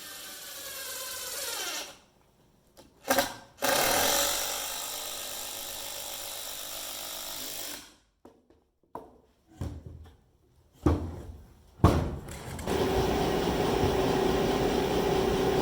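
A power drill driving 4.5-inch TimberLOK timber screws into oak. It spins up with a rising whine, gives a brief burst, then runs steadily for about four seconds and stops. A few short bursts follow, and in the last few seconds a steady machine hum takes over.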